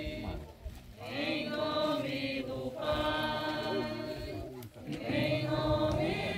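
A group of people singing a hymn together in long held phrases, with short breaks about a second in and again near the middle.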